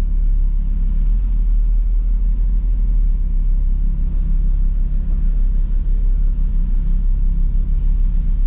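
Alpine A110's mid-mounted 1.8-litre turbocharged four-cylinder running steadily at low revs, heard from inside the cabin.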